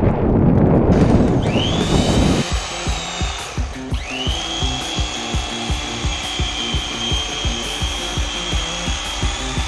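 Small electric motor of an electric fillet knife whining as it starts up, cutting out briefly about four seconds in, then running steadily as it works through the fish. Wind noise comes first, and background music with a steady beat runs beneath the motor.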